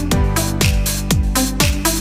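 Background electronic dance music with a steady kick drum, about two beats a second, over hi-hats and held synth notes.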